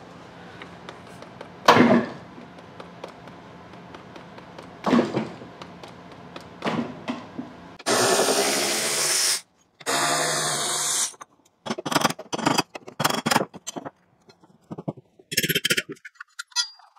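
A cordless drill runs in two steady bursts of about a second and a half each, about halfway through, on the screws of a wooden pallet. Before them come a few scattered knocks, and after them a quick run of sharp knocks and clatter of tools on wood.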